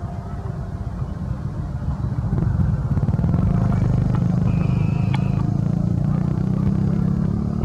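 A motor vehicle's engine running as a steady low rumble, getting louder about two and a half seconds in and holding there.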